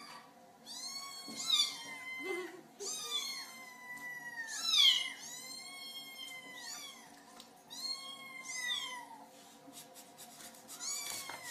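Young kittens meowing again and again, high thin calls that rise and fall in pitch, about half a dozen of them, the loudest about five seconds in.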